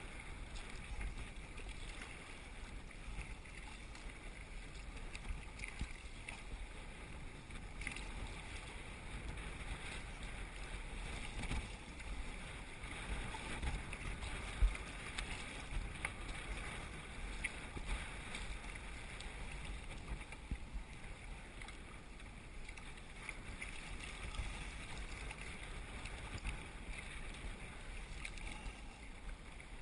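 Sea kayak paddled through choppy water in a strong breeze: wind buffeting the microphone, small waves slapping against the hull and paddle blades dipping, with one louder thump about halfway through.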